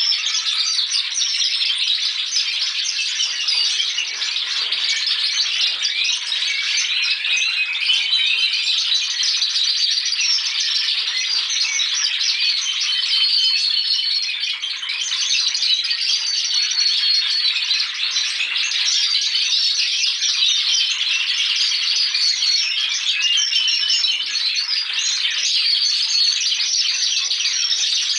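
Several young Spanish Timbrado canaries singing together in a continuous, dense chorus of rattling trills and quick metallic notes. These are young males practising their song.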